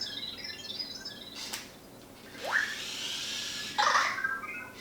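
Vector 2.0 home robot making its chirpy electronic beeps and warbles in answer to being called. Short high chirps near the start and again near the end, with a click and a rising, whooshing sound in between.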